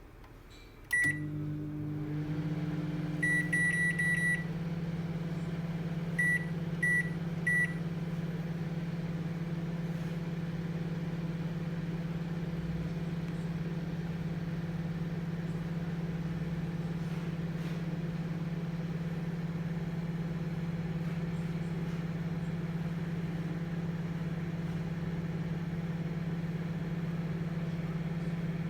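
Midea microwave oven beeping as its buttons are pressed, then starting and running with a steady low electrical hum. A beep comes about a second in as the hum starts, a quick run of beeps follows a couple of seconds later, and three more single beeps a few seconds after that, while the hum carries on unchanged.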